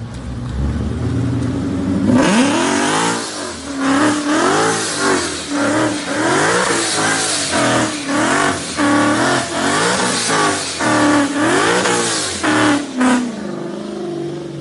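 Ford Mustang's engine running low for about two seconds, then revved hard over and over, its pitch rising and falling about once a second, with a broad hiss of spinning tyres and spray on wet pavement as the car slides around the lot.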